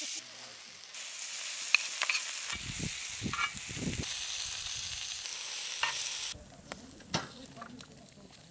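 Egg, sausage slices and chopped leek sizzling on a hot cast-iron griddle, with clinks and scrapes of a metal spoon and bowl. About six seconds in the hiss drops away to a quieter stretch with scattered pops.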